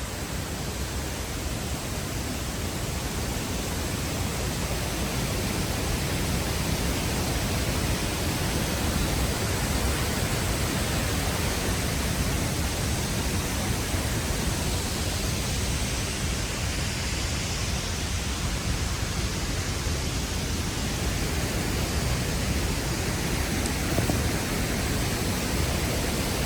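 A waterfall's steady rushing, growing a little louder over the first several seconds and then holding even.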